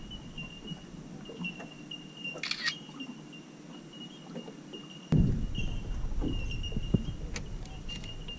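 Quiet handling noises on a small boat's deck, with light clicks and a brief clatter about two and a half seconds in, over a steady high-pitched tone. At about five seconds a low wind rumble on the microphone comes in.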